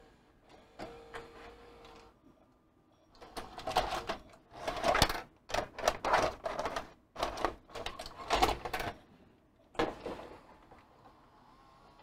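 Sharp DV-NC65 VHS deck mechanism clicking and clattering as a cassette is unloaded and another loaded, a run of loud sharp clicks from about three seconds in until about ten seconds in.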